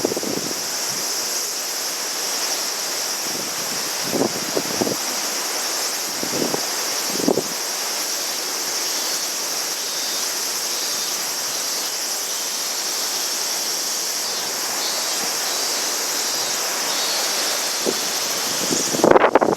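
Strong wind rushing steadily past the microphone, with a few short gusts buffeting it, a cluster of them near the end.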